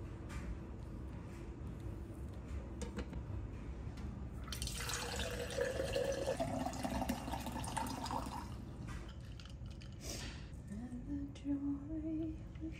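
Water running from the spigot of a stainless steel countertop water filter into a glass mason jar for about four seconds near the middle, its pitch rising as the jar fills.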